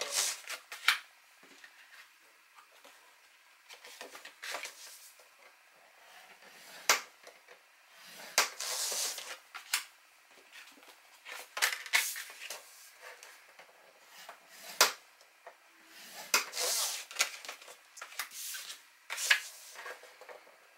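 Cardstock being scored on a ridged scoring board: a few short scraping strokes as a scoring tool is drawn along the board's grooves, with sharp taps and clicks as the card is set down, lined up and the tool knocks the board.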